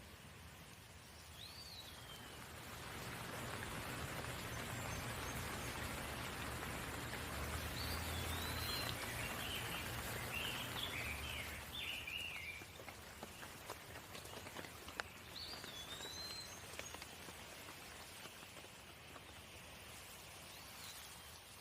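Steady rain falling, swelling louder for several seconds in the middle and then easing off. A bird chirps briefly now and then, with a quick run of chirps in the middle.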